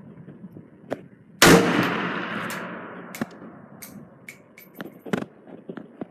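A single gunshot about a second and a half in, followed by a long echoing decay. Several smaller, sharp clicks and knocks come before and after it.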